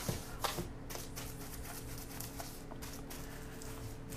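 A 5-inch paintbrush brushing lime wash onto a wall: soft, quick scratchy bristle strokes, one after another.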